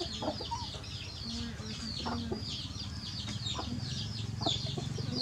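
Chickens clucking, with a continuous run of short, high, falling chirps several times a second and a low hum that grows louder in the second half.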